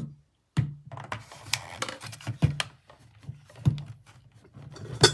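Plastic wall-outlet space heater being handled and plugged into a wall socket: a run of irregular sharp clicks and knocks, with a few louder ones near the end.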